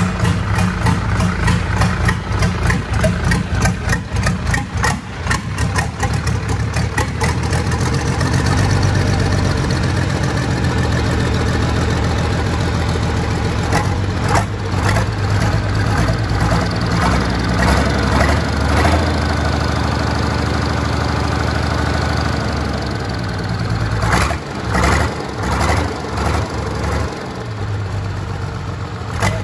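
Freshly overhauled MAN D0826 inline-six diesel engine running on a test stand on its first start after a full rebuild. It pulses unevenly at first, runs louder and steadier from about eight seconds in, and its speed dips and surges over the last few seconds.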